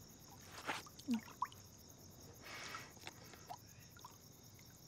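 Crickets chirping steadily in the night. A few brief, soft noises, like small movements, come through about a second in and again near the middle.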